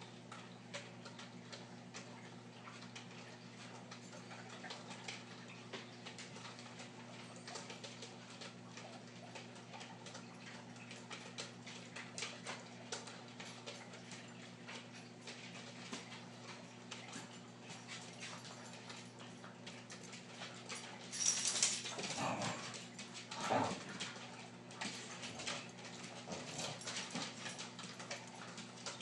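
A dog whining softly, loudest in two short whines about three-quarters of the way through, over a steady low hum and scattered faint ticking.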